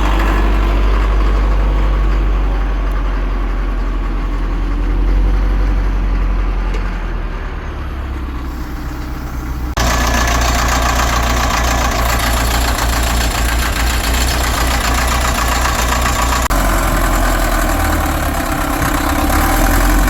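Caterpillar 950 wheel loader's diesel engine running steadily after a long-dormant start, with a low, loud rumble. The sound shifts abruptly about ten seconds in, turning brighter and harsher.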